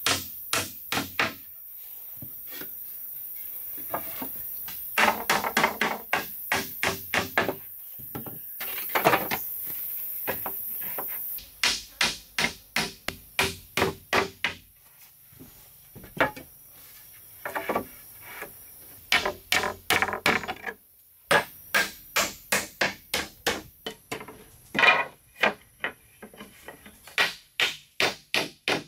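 Hatchet used as a hammer, nailing wooden floor boards down onto a platform: sharp wooden knocks in runs of blows, about two to three a second, with short pauses between the runs.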